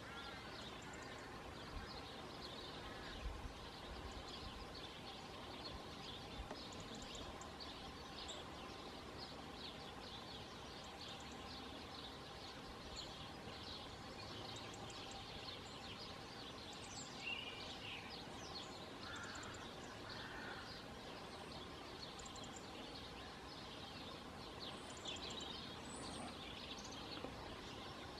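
Honeybees buzzing at the hive entrance as foragers fly in and out, a steady hum, with small birds chirping repeatedly in the background.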